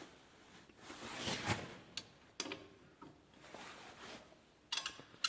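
Faint rustling with a few light, sharp clicks, about two seconds in and again near the end.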